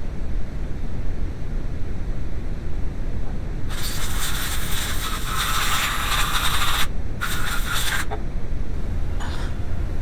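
A pressurised spray hissing for about three seconds, then again for about a second after a short break, and once more faintly near the end, over a steady low rumble.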